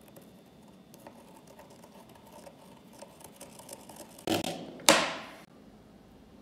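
Faint scratching of a pencil tracing along a steel cleaver tang laid on a wooden handle scale. A little after four seconds there is a short rustle, then a sharp knock about five seconds in that dies away over about half a second.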